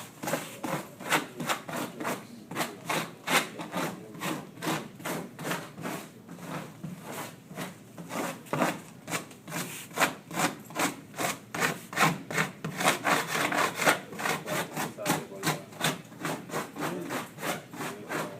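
Tape being rubbed down flat onto duct material with a hard card-like scraper: quick, repeated back-and-forth scraping strokes, about three to four a second.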